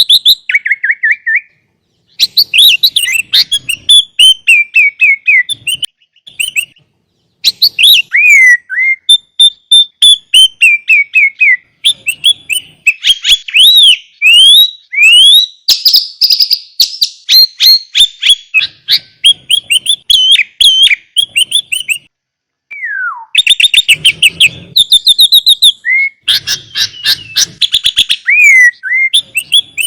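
Sooty-headed bulbul (kutilang) singing prolifically: fast runs of chirps, trills and rising and falling whistles, with a few short pauses, about two seconds in, around six to seven seconds in and around twenty-two seconds in.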